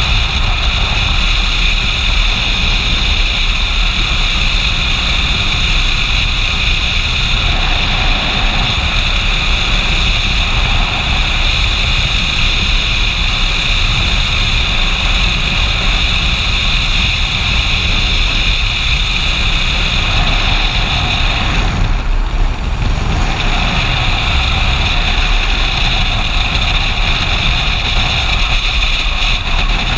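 Motorcycle riding at road speed: steady wind rush over the mount-mounted camera mixed with the engine running, with a brief lull in the hiss about three-quarters of the way through.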